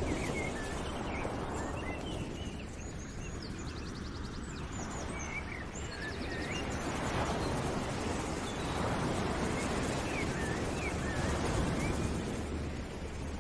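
Background outdoor ambience: a steady rushing noise with small birds chirping and trilling over it.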